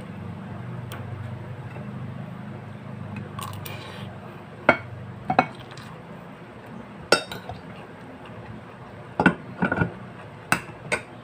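Spoon and fork clinking against plates during a meal: about seven sharp, short clinks in the second half, over a low steady hum.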